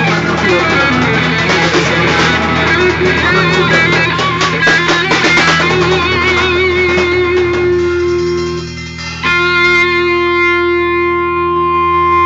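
Guitar-led band music playing. About three quarters of the way through, the playing thins out briefly, then a chord is struck and held, ringing steadily.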